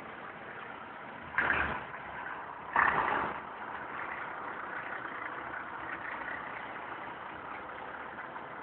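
Steady motor-vehicle engine noise with two short, loud, noisy bursts about a second and a half apart, near the start.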